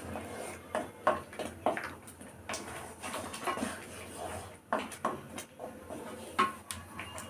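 Wooden spatula scraping and knocking against a metal kadai while stirring a thick spice paste as it fries, in irregular strokes.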